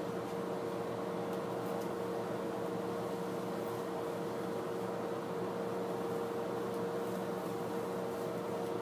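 Steady machine hum with a constant mid-pitched tone, unchanging throughout.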